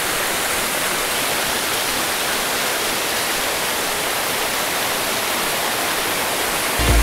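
Steady rushing of a small waterfall cascading down a rock face and over boulders. Background music comes in just before the end.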